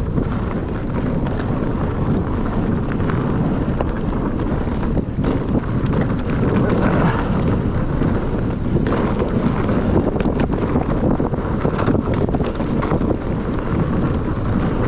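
Wind buffeting the microphone as a mountain bike rolls along a dirt trail, a steady rumble with many small clicks and rattles from the bike.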